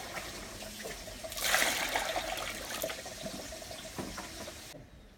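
Water splashing and trickling in a steel bowl as freshly gathered wild mushrooms (Amanita and earthstar puffballs) are rinsed, with small knocks and a louder splashy swell about a second and a half in; it cuts off just before the end.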